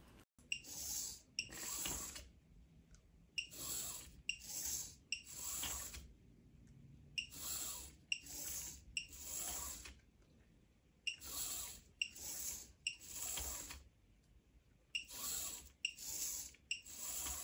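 Bittle robot dog's servo motors whirring in short bursts as it moves through three poses, each burst opening with a click. The bursts come in five groups of three, with about a second's pause between groups: the sit, stand-up and butt-up sequence repeated five times.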